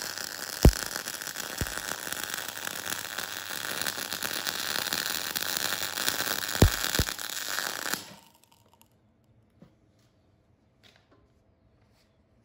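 MIG (GMAW) welding arc on galvanized steel, crackling and hissing steadily, with a few low thumps. The arc cuts off suddenly about two-thirds of the way through, leaving near silence with a few faint ticks.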